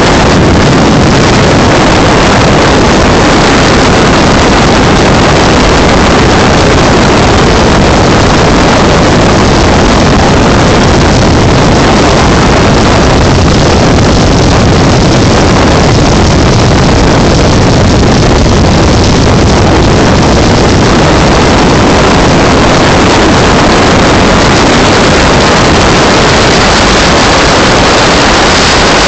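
Motorboat running at planing speed: a loud, steady rush of engine and water noise, with wind buffeting the microphone.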